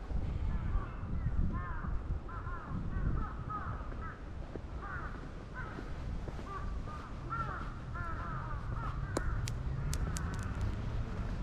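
Birds calling over and over, many short arched calls overlapping without a pause, with a few sharp clicks near the end.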